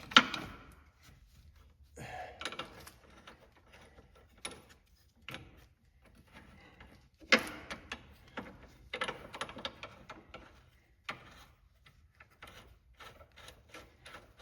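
Scattered metallic clicks, taps and clanks of hand tools, washers and a nut being worked onto a steering-rack mounting bolt. The sharpest knocks come right at the start and about seven seconds in.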